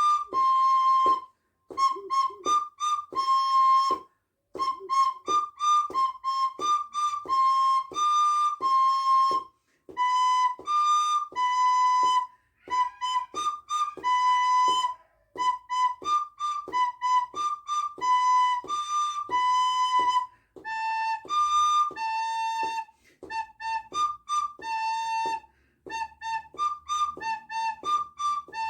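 Soprano recorder playing a simple practice exercise in its upper register, moving between a few neighbouring notes up to high D. The notes are short and tongued, in a steady beat, with brief pauses between phrases.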